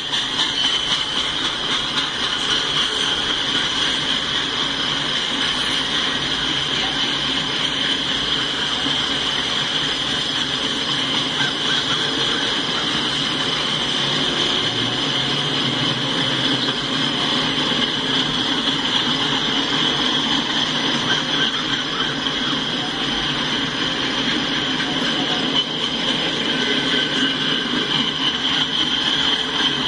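Freight train cars rolling past on steel rails: a steady wheel-and-rail rumble and rush, with a continuous high squeal from the wheels.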